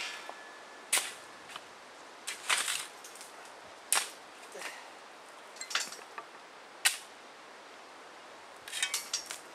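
Sharp metallic hammer blows on steel track parts at irregular intervals, with a quick run of lighter strikes near the end.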